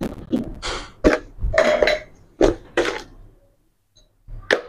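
A person's voice in short, abrupt bursts, with a pause about three seconds in.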